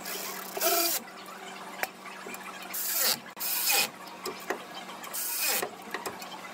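Hand ratchet clicking in four short bursts as the transmission pan bolts are run in and tightened.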